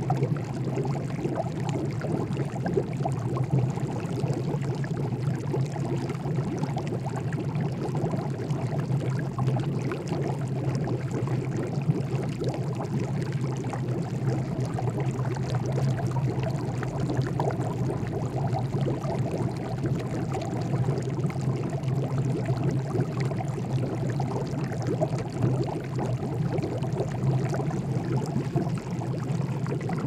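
Water boiling in a pot: a dense, steady bubbling that keeps an even level throughout.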